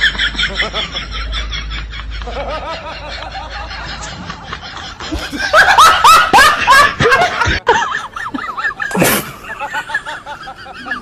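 Laughter: quick, pulsed snickering and chuckling that grows loudest about six seconds in. A short, loud burst of noise cuts through about nine seconds in.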